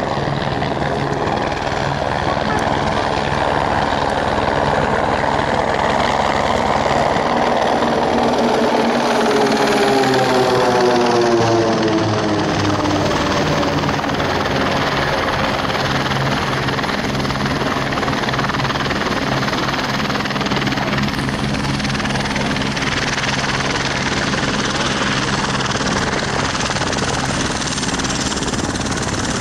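A formation of nine Pilatus PC-7 single-turboprop trainers flying past with a steady propeller drone. The drone swells and falls in pitch about ten seconds in as the formation passes closest, then runs on as a lower, steadier hum.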